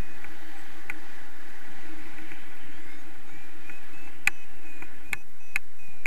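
Steady rush of airflow over the camera microphone during paraglider flight, with a few sharp clicks in the second half.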